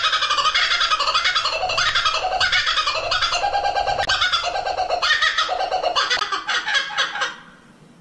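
Laughing kookaburra giving its laughing call: a long run of rapid, repeated notes that fades away near the end.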